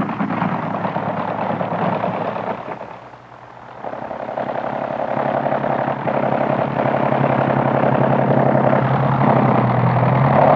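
Early biplane's piston engine running with a raspy, steady buzz. It sags briefly about three seconds in, then picks up and rises in pitch near the end.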